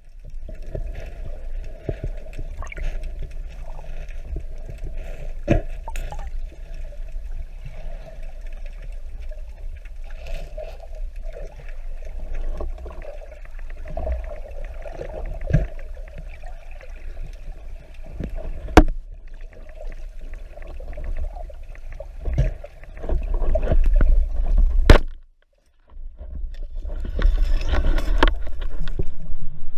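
Muffled water movement recorded underwater: a steady low rushing with scattered sharp clicks and knocks. Near the end it cuts to silence briefly, then resumes.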